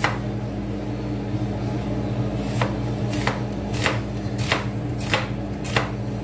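Kitchen knife cutting through an onion onto a wooden cutting board: seven sharp knocks, spaced evenly about twice a second from a little before halfway, over a steady low hum.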